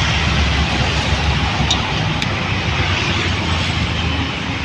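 Steady roadside traffic rumble, with a few faint short clicks.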